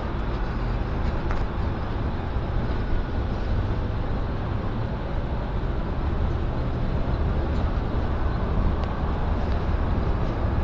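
Steady low rumble of a city bus's engine and running gear, heard from inside the passenger cabin.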